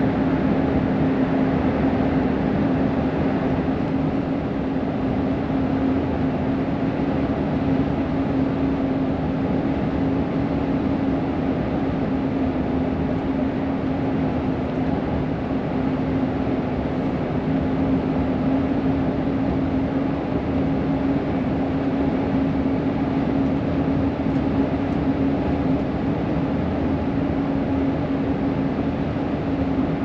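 Steady road noise of a car driving at an even speed, tyre and engine noise with a constant low hum at one pitch, heard from inside the cabin.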